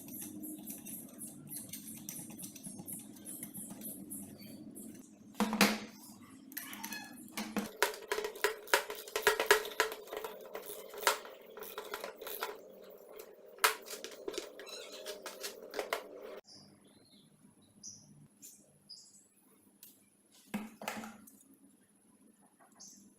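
Sharp clicks, taps and knocks of small hard parts being handled, densest in the middle stretch, over a steady low hum that changes abruptly twice.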